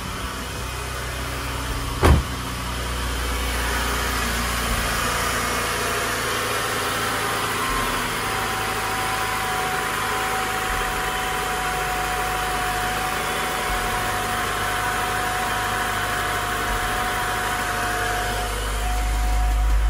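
Honda Civic's swapped-in GSR B18C 1.8-litre DOHC VTEC four-cylinder idling steadily after starting right up on a new main relay. There is one sharp thump about two seconds in, and a steady whine joins about eight seconds in.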